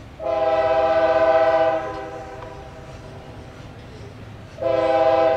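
Diesel locomotive air horn sounding a chord in two long blasts, the first about a second and a half long, the second starting near the end, over the low rumble of the approaching train. It is the horn signal for a grade crossing.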